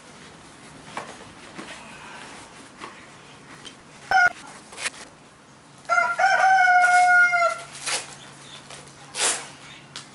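A rooster crowing: a short call about four seconds in, then one long crow held for nearly two seconds, the loudest sound. A few brief rustles fall around it.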